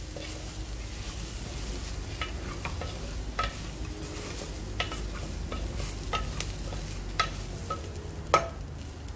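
Wooden spatula stirring broken wheat and vegetables in hot oil in a pressure cooker, scraping along and knocking against the metal pot about a dozen times with short ringing clicks, the loudest near the end. Frying sizzle underneath.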